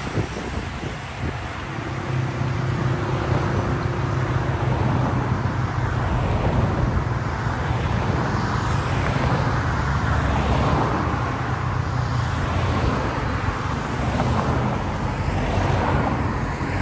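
Road traffic: cars driving past on the road, with a steady low engine drone running under the tyre and road noise through most of the stretch.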